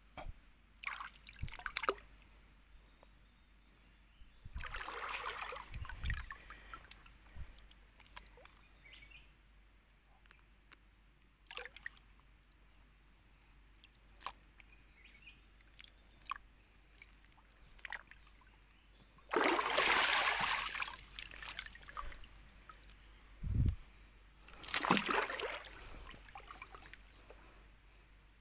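Shallow stream water sloshing and splashing in irregular bursts as someone wades through it, with quiet gaps between; the longest bursts come about two-thirds of the way in and again near the end.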